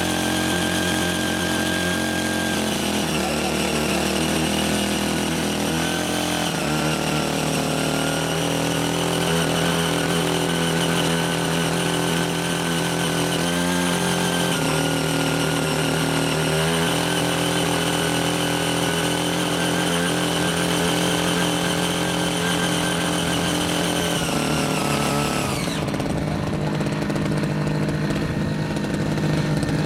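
Small petrol engine of a CY80 walk-behind power tiller running at working speed while its rotary tines dig through red clay soil. The engine note shifts a little a few times, and dips then starts to rise again near the end.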